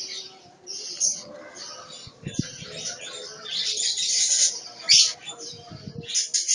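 Javan myna giving harsh, scratchy chattering calls in repeated bursts, with a couple of dull low thumps in between.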